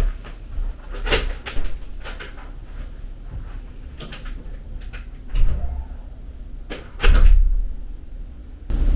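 Hotel room door being opened and shut: a string of clicks and knocks from the handle and latch, then a heavy thud about seven seconds in as the door closes.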